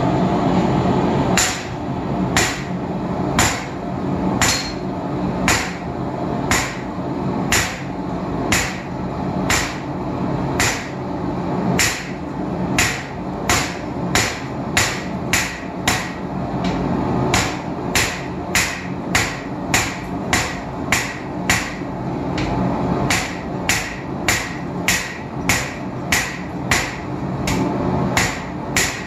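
Hand hammer striking hot round steel bar on an anvil, drawing out a taper: evenly paced blows, about one a second at first and quickening to nearly one and a half a second, over a steady rushing background.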